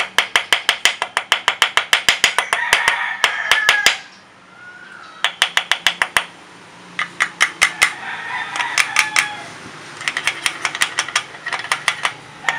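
A hammer tapping a steel punch on a scooter's CVT secondary sliding sheave and clutch assembly. The metal-on-metal taps come quickly, about six a second, in four runs of one to four seconds with short pauses between.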